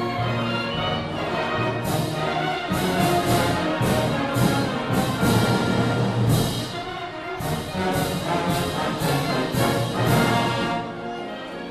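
Concert band of woodwinds, brass and sousaphones playing a loud piece together. From about two seconds in until near the end, sharp percussion hits come about two to three times a second.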